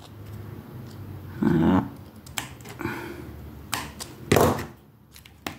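Light clicks and knocks of small craft tools, a felt-marker part and a bottle being handled on a cutting mat. There are two louder short sounds, about a second and a half in and again about four and a half seconds in.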